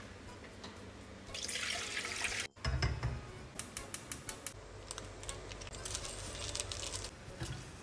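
Water poured from a plastic dipper into a pot. About two and a half seconds in, after a cut, comes a gas stove being lit: a short low whoosh, then a run of sharp clicks over a steady low hum.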